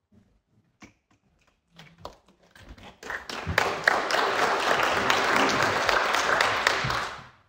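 Audience applauding. A few scattered claps come first, then the applause swells about three seconds in, holds steady and dies away just before the end.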